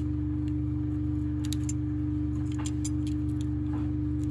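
Steady low hum of a tumble dryer running, with a few faint clicks as small plastic sweeper parts are handled and scraped with a blade.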